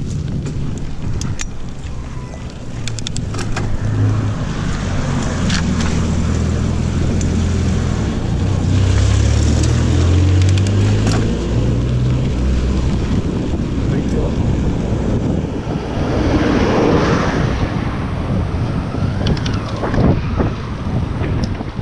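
A motor vehicle's engine running close by, loudest and shifting in pitch through the middle, over road traffic noise and wind rushing across a bicycle-mounted camera's microphone.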